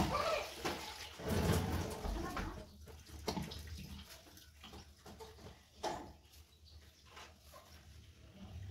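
Hands mixing flour and water into dough in a steel plate: water splashing and slopping in the first couple of seconds, then scattered light clicks and rustles as the dough is worked.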